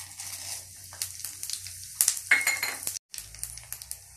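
Chana dal, urad dal, cumin and mustard seeds sizzling in hot oil in a steel kadai as the tempering is poured in. There are sharp metal clinks about two seconds in, followed by a short ring, and the sound cuts out for a moment just after three seconds.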